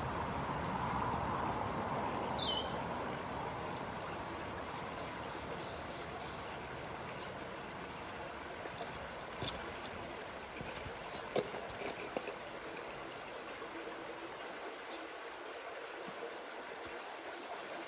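Shallow creek trickling and babbling over rocks, a steady water sound. One short falling chirp about two seconds in, and a few faint ticks later on.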